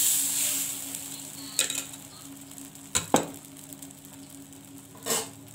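Uttapam batter sizzling on a hot tawa as a ladle spreads it, the sizzle fading over the first second or two. After that come a few short clinks of utensils: one near a second and a half in, two close together about three seconds in, and one near the end.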